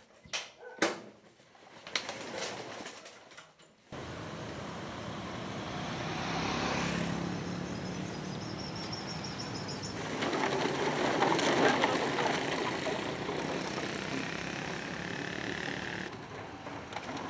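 A few sharp knocks, then an abrupt change to a steady rush of outdoor noise with vehicles, louder around the middle.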